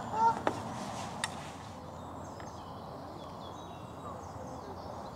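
A goose honks once at the start, then small birds chirp faintly and high-pitched, over a low outdoor hiss. Two light clicks come about half a second and just over a second in.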